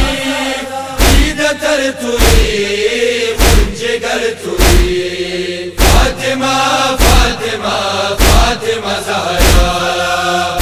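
Men's group chanting a Hazaragi noha, a Shia lament, in unison over a deep chest-beating (matam) thump that falls about every 1.2 seconds.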